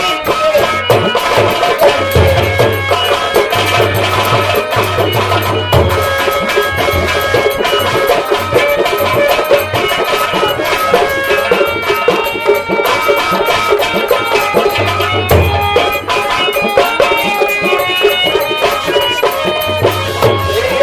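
Instrumental folk-theatre music: hand drums beat a steady rhythm under a sustained, held melody line, with no singing.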